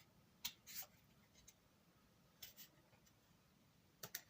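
Near silence with a few faint, short rustles and scrapes, spaced out over the few seconds, typical of tarot cards being handled on a table.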